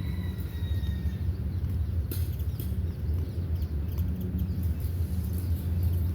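A steady low rumble throughout, with a faint, thin, high-pitched call from a fallen nestling bird lasting about a second at the start, and a brief click about two seconds in.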